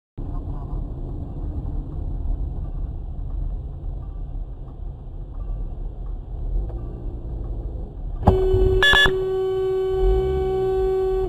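Car interior road rumble picked up by a dash cam, then about eight seconds in a car horn blares, long and steady for about three seconds, with a couple of sharp clicks near its start.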